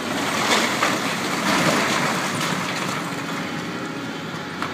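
Doosan DX300LC tracked excavator working with its diesel engine running under load, over a dense crunching and clattering of demolition debris being broken and moved, heaviest in the first half.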